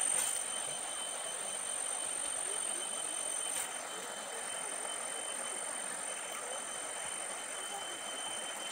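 Insects, such as cicadas, droning steadily as a high thin whine that holds one pitch throughout, over an even rustling hiss.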